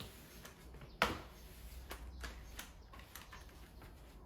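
A sharp knock about a second in, then faint scattered clicks and light handling noises as the floor is cleaned up.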